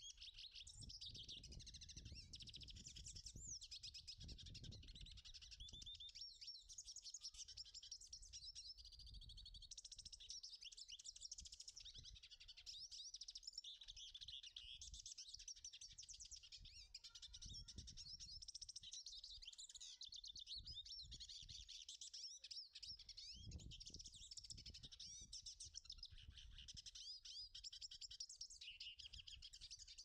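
Hooded siskin singing a long, continuous song of rapid, varied twitters and warbles, with no breaks.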